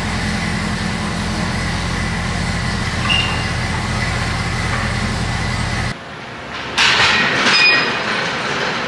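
2018 Camaro ZL1's supercharged 6.2-litre V8 idling with a steady low rumble, shut off abruptly about six seconds in. A short clatter of knocks follows near the end as the driver's door opens.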